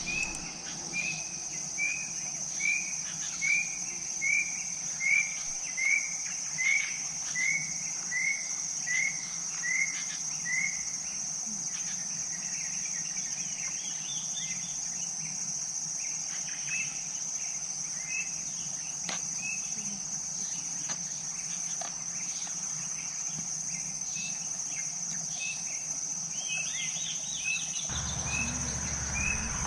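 Insects trilling steadily at a high pitch, with an animal giving a run of about fifteen short rising calls, roughly one and a half a second, that slowly drop in pitch over the first ten seconds, followed by scattered chirps.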